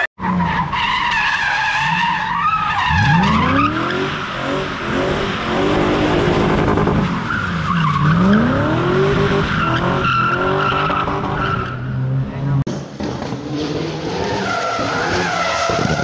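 A car spinning donuts on asphalt: its engine revs up and down in big sweeps while the tyres squeal and skid. After a sudden break near the end, a different car's engine takes over, running more steadily.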